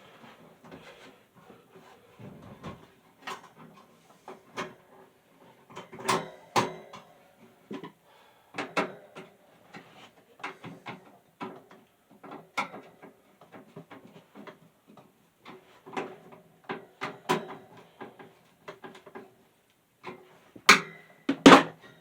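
Irregular clicks, taps and knocks of parts being handled and fitted by hand on a box fan, spaced unevenly every second or so, with a few louder knocks.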